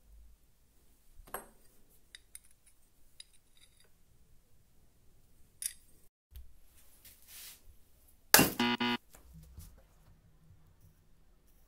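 Small metal hole saw and its plastic case handled on a table: light metallic clinks and taps, a sharp clack just before the middle, and a louder brief rattling clatter a little past two-thirds of the way through.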